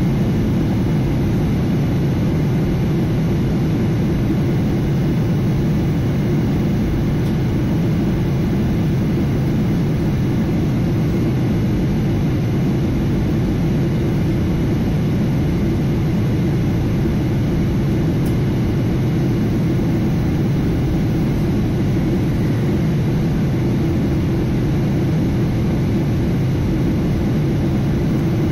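Steady cabin noise inside a Boeing 737-800 airliner on descent: the constant low rush of airflow and the CFM56-7B turbofan engines, heard from a window seat over the wing.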